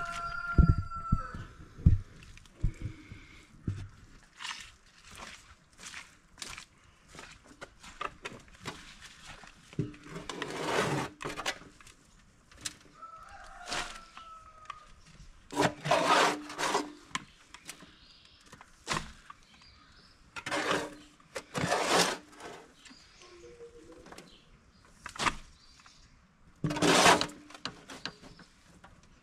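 Repeated bursts of rustling and scraping as leaves and chicken manure are loaded into a bathtub worm bin, with short knocks between them. Chickens call now and then in the background.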